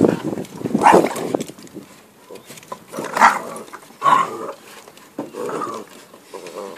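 A Great Dane and a terrier play-growling and grunting at each other. The sounds come in several short rough bursts, the loudest about a second, three seconds and four seconds in.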